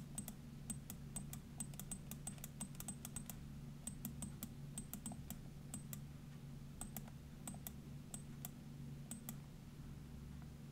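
Faint irregular clicking of computer keyboard keys, a few clicks a second, stopping about nine seconds in, over a low steady hum.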